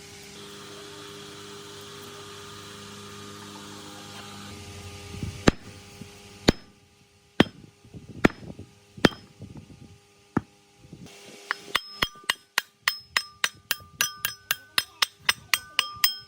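A steady machine hum that stops about four and a half seconds in, then a hammer striking metal: a few single blows about a second apart, then a quicker run of about three blows a second, each with a ringing metallic tone.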